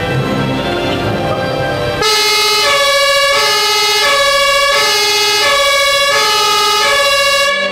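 Music for about two seconds, then the two-tone siren of an MAN HLF 20 fire engine, alternating between a lower and a higher note about every 0.7 seconds. The siren cuts off just before the end.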